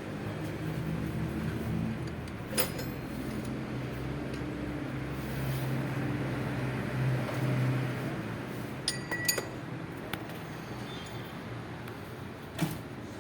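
A steady low engine-like hum with a few sharp metallic clinks: one about two and a half seconds in, a quick cluster of three around nine seconds, and one near the end.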